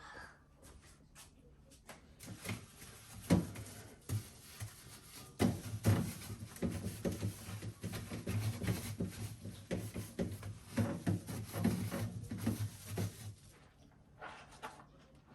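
Wiping and scrubbing inside a fridge, a steady rubbing broken by frequent knocks and clatter of plastic shelves and drawers. It starts about two seconds in and dies down a couple of seconds before the end.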